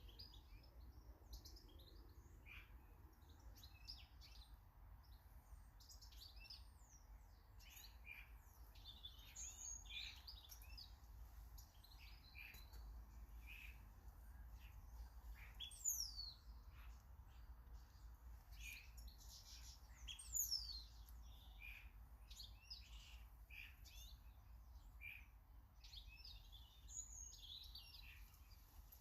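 Small garden birds chirping and calling, with many short high chirps and two high notes sweeping sharply downward, about sixteen and twenty seconds in. A faint steady low hum lies underneath.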